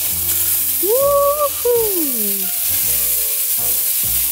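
Marinade of melted butter, Worcestershire sauce and lemon juice sizzling as it is poured over chicken on a hot Big Green Egg kamado grill: a steady hiss. About a second in there is a short tone that rises, holds and then slides down.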